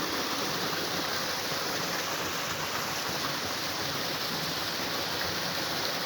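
Water of a stream running steadily, an even, unbroken rush.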